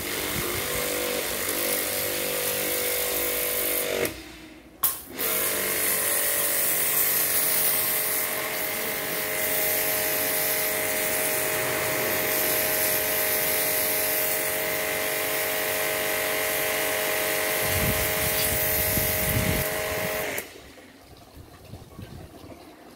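Mini pressure washer (car-wash machine) motor and pump running steadily under load, with the hiss of its water spray, on a test run after the motor was rewound. It stops for about a second around four seconds in with a click, runs again, and cuts off near the end.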